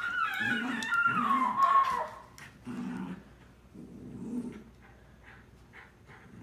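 Terrier puppy growling in play while tugging at a toy: a few short low growls, the last of them about four seconds in. A high wavering vocal sound over the first two seconds.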